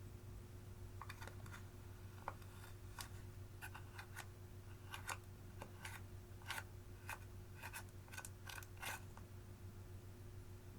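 A string of short, crisp clicks and crackles from makeup and clear slime being worked by hand, over a steady low hum.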